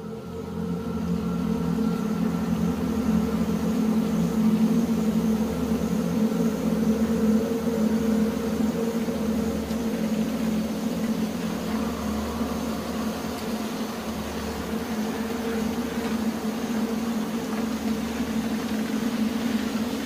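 Steady low drone with a slowly pulsing deep hum underneath, fading in at the start and holding an even level throughout.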